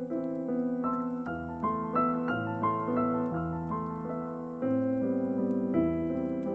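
Calm piano music: single melody notes over held chords that change every second or two.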